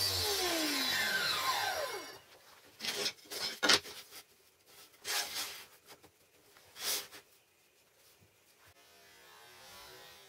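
Table saw running down after being switched off: its motor hum stops and the blade's whine falls in pitch over the first two seconds. Then come a few sharp knocks and taps as cut MDF triangles are set down and fitted together on the saw table.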